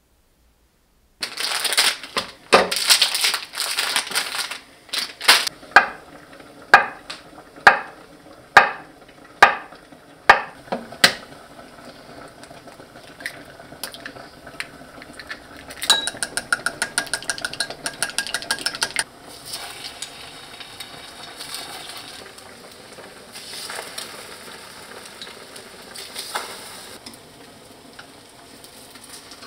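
Kitchen work sounds. First a clatter, then a knife knocking on a wooden cutting board about once a second as sausage is sliced. Then egg is beaten fast in a glass bowl for about three seconds, the glass ringing, and then comes the soft sizzle of egg-coated sausage slices frying in a pan.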